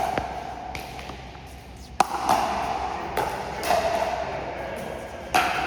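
Pickleball paddles striking the plastic ball in a rally: a few sharp pops, the loudest about two seconds in, with scuffling court noise between them.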